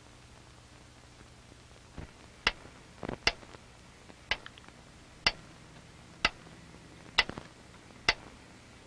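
Mechanical metronome ticking, about one sharp tick a second, starting about two seconds in.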